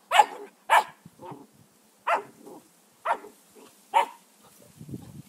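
Chesapeake Bay Retriever puppy barking in play: five short, sharp barks about a second apart, with a few softer ones between them.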